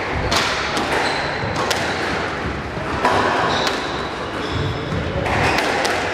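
A squash rally: the ball strikes rackets and the court walls about once a second, with short high squeaks of shoes on the wooden floor between the hits.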